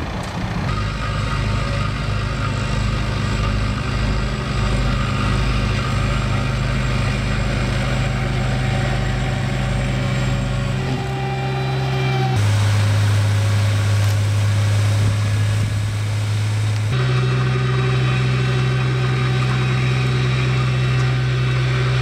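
Steady diesel engine hum of road-surfacing machinery, a chip-spreading dump truck and a double-drum road roller, running through the whole stretch. The engine tone changes abruptly about halfway through and again near the three-quarter mark.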